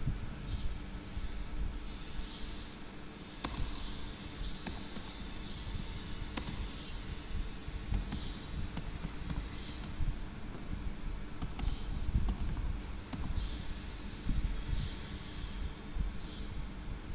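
Computer keyboard typing: irregular key clicks, with two sharper, louder ones a few seconds apart, over a steady low hum.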